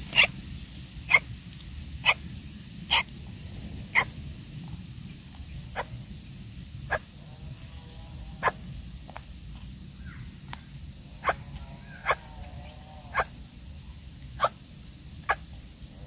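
Coucals at the nest giving short, sharp calls about once a second, with a few soft, low warbling notes between them, over a steady high-pitched hum.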